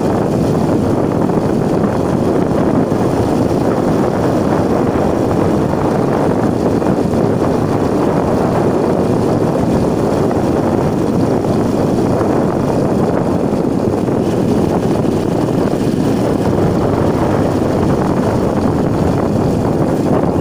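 Steady rushing noise of a vehicle moving along a road: wind and road noise on the microphone, with no change in level.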